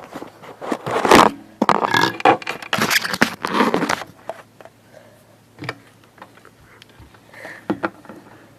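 Small plastic toy dolls handled and scraped against a surface close to the microphone, a dense rustling scrape with clicks that thins out after about four seconds into a few scattered taps.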